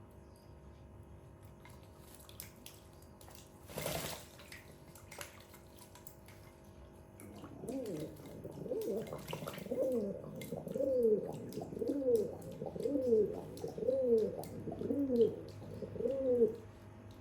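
Domestic pigeon cooing: a string of about nine rising-and-falling coos, roughly one a second, starting about halfway through. Before that, a short rush of noise about four seconds in and faint small clicks.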